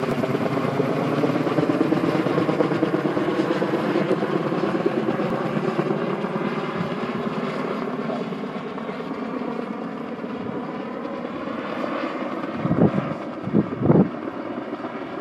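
Kaman K-MAX helicopter flying overhead, its intermeshing twin rotors beating steadily over the turbine, gradually getting quieter as it moves away. A few brief low thumps come near the end.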